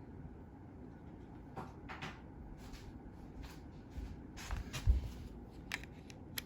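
Scattered light clicks and knocks of small objects being handled and set down, with a few heavier thumps about five seconds in.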